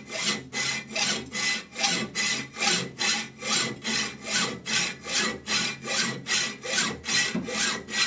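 Dull hand hacksaw cutting through metal, steady back-and-forth strokes at about two a second.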